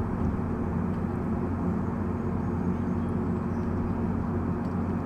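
A machine or engine running steadily with a low hum, several even tones under a rumbling noise, starting abruptly.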